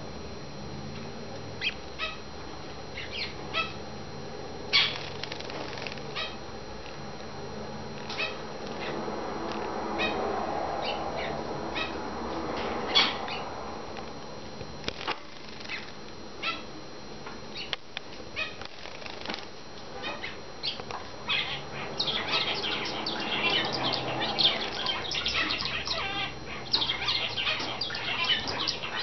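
Young cut-throat finches giving short, sharp chirps: scattered single notes at first, coming thick and fast from about two-thirds of the way in.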